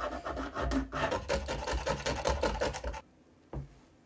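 A small brush scrubbing a plastic washer bottle in soapy water, in quick back-and-forth strokes of about five a second, which stop abruptly about three seconds in. A single short knock follows.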